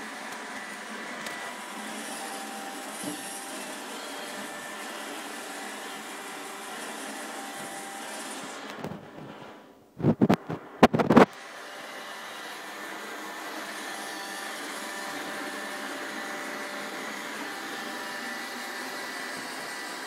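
iRobot Roomba 780 robot vacuum running steadily over carpet: a steady whir with a faint high whine from its suction motor and brushes. About halfway through the sound drops out briefly, then comes a cluster of loud knocks, after which the steady running resumes.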